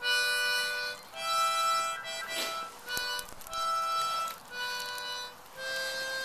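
Music: held chords played in short phrases of about a second each, with brief gaps between them.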